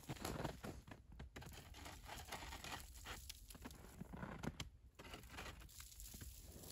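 Footsteps crunching through crusted, frozen snow, an irregular run of soft crunches and crackles.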